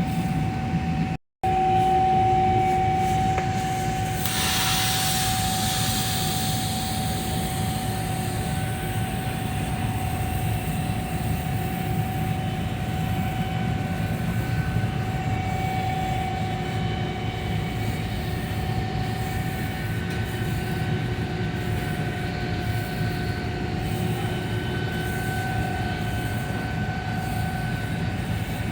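Steady machine drone with a thin, constant whistling tone over a low rumble, cut off for a split second about a second in.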